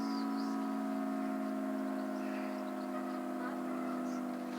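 Electro-mechanical warning siren sounding a steady tone at a constant pitch, rich in overtones, during its monthly test.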